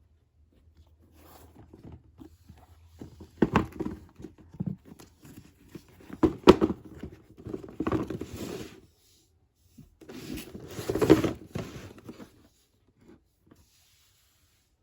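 Sneakers and their cardboard box being handled: irregular knocks and taps mixed with short bursts of rustling. The loudest knocks come about three and a half, six and a half, and eleven seconds in.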